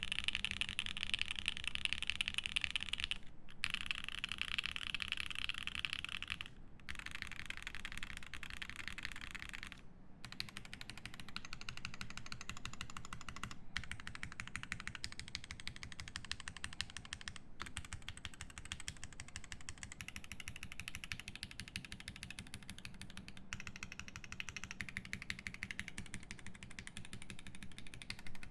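Fast, continuous typing on a Swift65 mechanical keyboard with lubed Alpaca linear switches, a polycarbonate plate and GMK keycaps: a dense clatter of keystrokes with brief breaks every few seconds.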